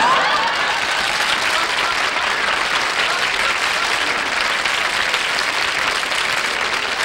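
Studio audience applauding steadily, greeting a performer's entrance, with a few voices from the crowd as it starts.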